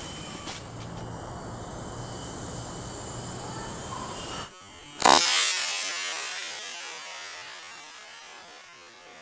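Steady drone of insects buzzing in forest. About five seconds in, a single sharp, loud crack cuts in after a brief drop-out and fades away slowly over several seconds.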